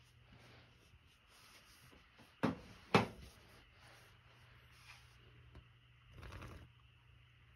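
Door knocking as it is moved: two sharp knocks about half a second apart, then a short scuffing rustle about six seconds in.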